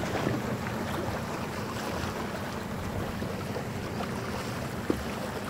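Wind buffeting the microphone on a boat at sea, over the steady low hum of the boat's idling engine and the wash of water. There is one short knock near the end.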